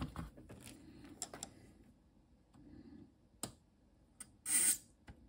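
Scattered small clicks and taps as a soldering iron tip and a circuit card are handled while desoldering a battery leg, with a short, louder burst of noise about four and a half seconds in.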